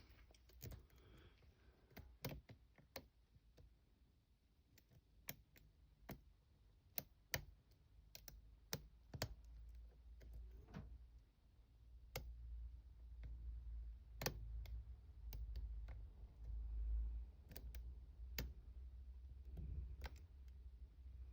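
Faint, irregular clicks of a lock pick and tension wrench working the pins inside a challenge lock, with a low rumble of handling from about halfway through.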